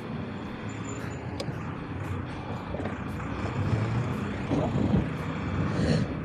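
Wind and road noise on a moving electric motorcycle, with road traffic around it: a steady, shifting rush with no engine note.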